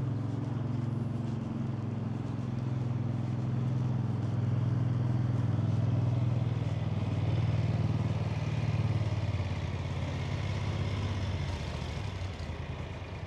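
An engine running with a steady low hum that swells slightly in the middle and dies away near the end.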